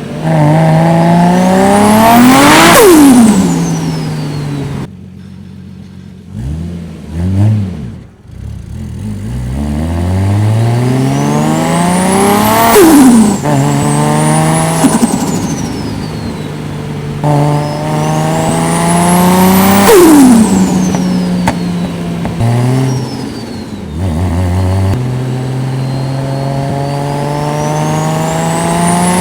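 Toyota Soarer's turbocharged 1JZ-GTE inline-six making short pulls. Each time, the engine note climbs with a rising turbo whistle, then drops on lift-off as the whistle falls away with turbo flutter. This happens three times, with a fourth pull building near the end.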